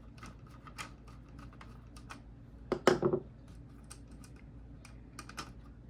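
Irregular light clicks and taps of small plastic and metal parts being handled while a plastic router box is taken apart, with a louder clatter about three seconds in.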